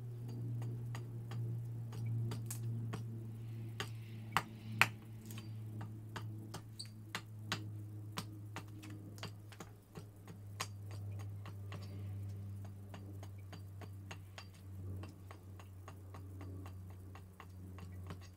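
Gränsfors Bruk Large Swedish Carver axe making quick, light cuts into a split cherry spoon blank standing on a chopping block: a run of sharp wooden ticks, a few each second, with two louder strikes close together a little over four seconds in. A steady low hum runs underneath.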